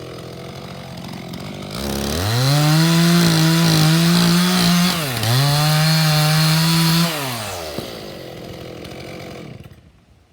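Two-stroke chainsaw cutting through a large pecan log: it idles, is revved to full throttle about two seconds in and holds steady with a brief dip about halfway, then drops back to idle about seven seconds in and dies away near the end.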